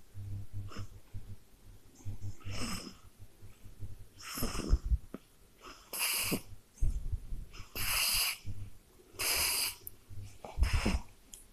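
Baby snoring in sleep: a steady run of noisy breaths, one about every one and a half to two seconds, several of them with a low snoring rumble.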